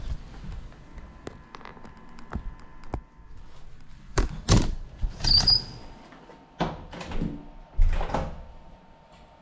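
Handling knocks and thumps from a person moving right beside the camera, louder and more frequent in the second half. A short high squeak comes about five seconds in.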